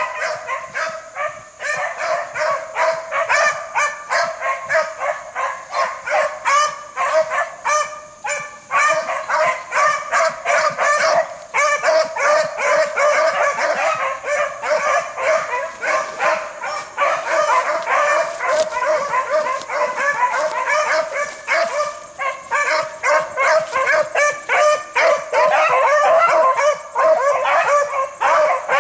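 Pack of beagles baying and yelping without pause, several voices overlapping: hounds giving tongue as they run a rabbit's scent trail.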